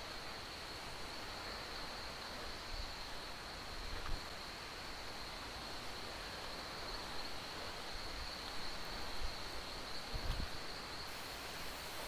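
Steady high-pitched insect drone, one unbroken tone, over a soft even hiss of forest background, with a couple of brief low knocks about four and ten seconds in.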